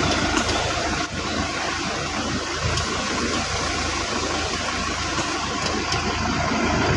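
Toyota Grandia van's engine running steadily with the A/C on, a steady hum and fan noise, with a few faint sharp clicks now and then. The A/C compressor is faulty, the gauges reading erratic.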